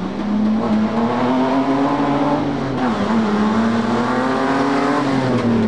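Four-wheel-drive competition truck's engine revving under load on a rough course: its pitch climbs, drops about three seconds in, climbs again, then falls away near the end.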